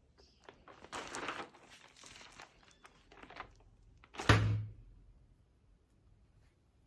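Handling noises, soft rustles with light clicks, then one loud thump about four seconds in.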